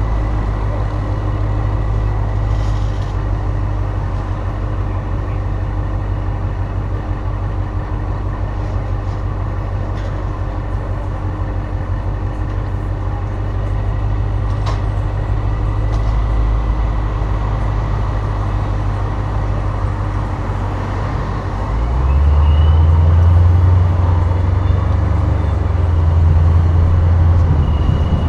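Dodge Charger SRT8's V8 engine running steadily at low revs while cruising, with road and wind noise. About 22 seconds in the engine note grows louder and fuller as it pulls harder.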